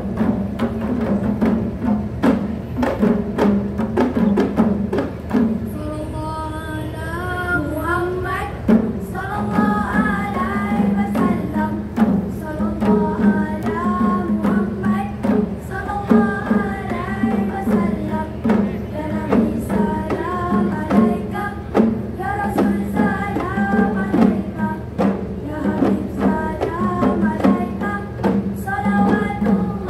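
Kompang frame drums played as an ensemble in a fast, interlocking rhythm. Voices come in singing over the drumming about six seconds in.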